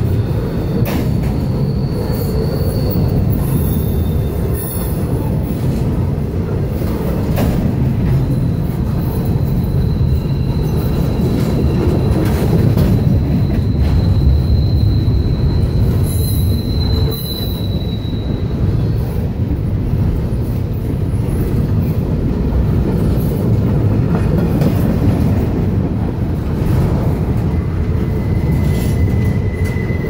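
Cars of a CSX intermodal freight train rolling past close by: a steady, loud rumble of steel wheels on rail. A faint high wheel squeal rises through the middle, and another thinner squeal comes in near the end.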